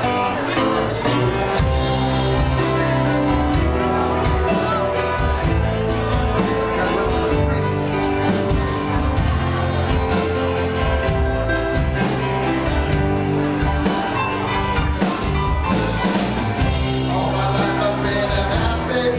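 Live rock band playing a song with a steady beat: bass guitar, acoustic guitar and drums, with a man singing into a microphone.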